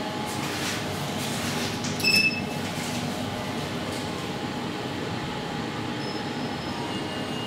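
Traction elevator car travelling in its shaft: a steady running rumble and hum heard from inside the car. About two seconds in, a short high electronic beep sounds.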